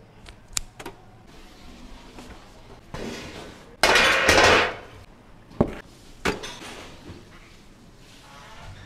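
Metal kitchenware being handled: a few clicks of metal tongs, a loud rushing scrape about four seconds in, and two sharp metal knocks shortly after.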